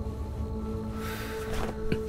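Drama score music of held, ringing drone tones, joined about a second in by a whooshing sound effect and a short sharp sound near the end.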